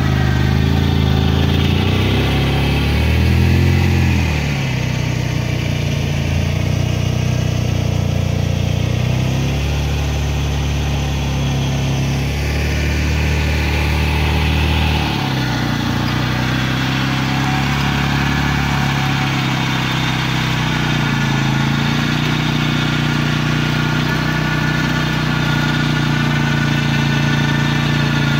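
Suzuki Ozark ATV's single-cylinder engine, stuck in a deep mud hole in two-wheel drive. It revs up and down for the first few seconds, runs at a steady higher speed, then drops suddenly to a steady idle about halfway through.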